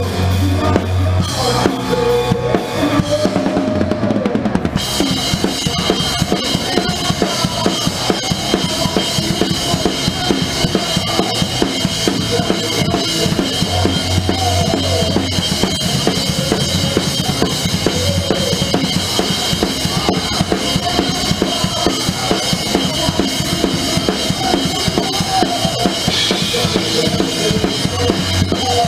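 Drum kit played hard and fast in a live heavy metal song, with rapid bass drum strokes, snare and cymbals over the rest of the band.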